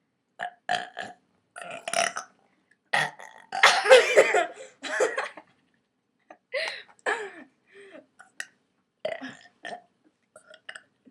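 Girls burping, a string of separate burps. The longest and loudest is drawn out over about two seconds a few seconds in, with shorter burps before and after it.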